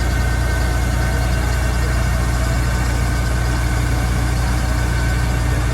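Kubota rice combine harvester running steadily, a constant low engine drone with a faint steady high whine over it.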